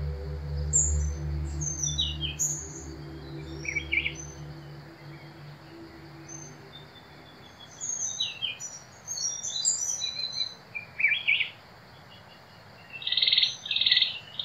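Birds chirping and calling in short, scattered phrases, with a louder run of calls near the end. A low music bed fades out during the first few seconds.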